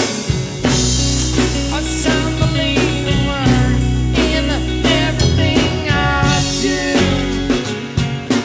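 Folk rock band playing: acoustic and electric guitars, bass and drum kit, with singing over the top.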